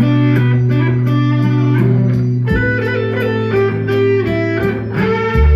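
Band music: electric guitar playing over a held bass line, with a steady beat ticking on top. Near the end the bass drops to a lower note.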